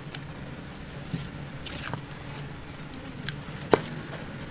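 Large knife cutting through blocks of ocean sunfish flesh and knocking on a wooden chopping block: a few sharp knocks spread through, the loudest a little before the end.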